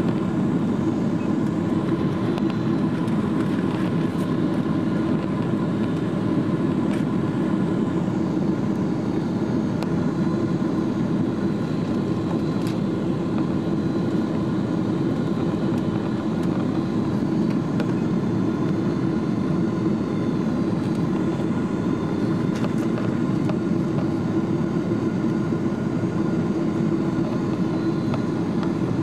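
Steady cabin noise inside a Boeing 777-267 climbing out after takeoff: the rush of airflow with a steady hum from its Rolls-Royce Trent engines, heard from a window seat over the wing.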